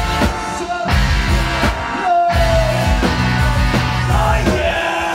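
Live rock band playing loud with electric guitar, bass guitar and drums; about two seconds in the low end drops out briefly under a held wavering note before the full band comes back in.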